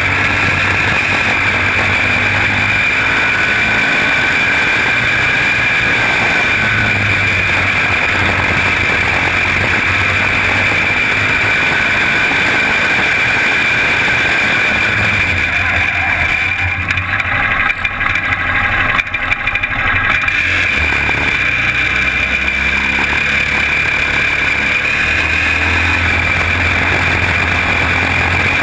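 Small engine of a quarter midget race car running hard on track, heard on board from the driver's seat. The sound changes and dips in loudness briefly a little past the middle.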